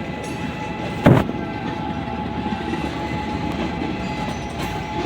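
Diesel locomotives running during switching, a steady rumble with a steady whine over it, broken by one sharp bang about a second in.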